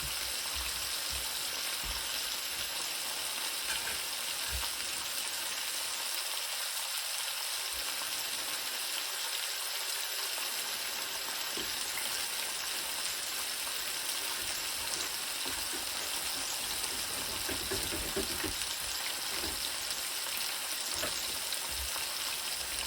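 Food frying with a steady sizzle.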